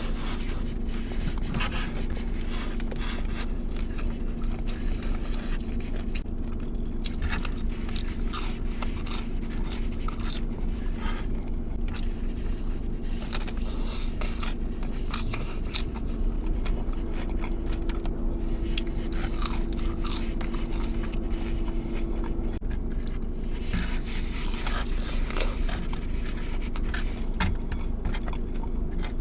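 Close-up crunching bites and chewing of crispy fried chicken, in many short irregular crunches, over a steady low hum.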